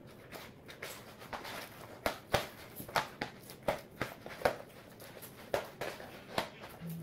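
Hands kneading soft, oiled yeast dough in a plastic basin: irregular wet squelches and slaps, roughly two a second.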